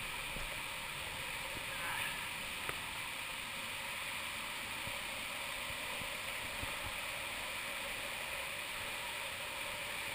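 Steady rush of river rapids and white water. One brief knock comes a little under three seconds in.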